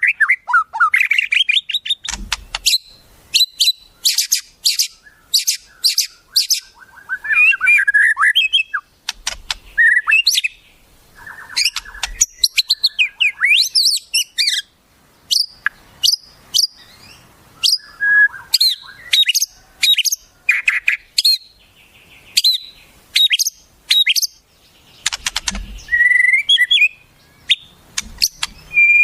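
Wild songbirds singing: a fast, varied string of sharp chirps, rising and falling whistles and short trills, broken by brief pauses.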